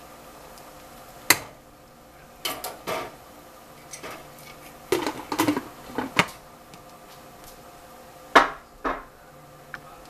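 A serving spoon knocking and scraping against a cooking pot and a bowl as food is dished up, then a glass pot lid with a metal rim clinking as it is set on the pot. Sharp separate clinks and clatters, a handful spread out with short pauses between them.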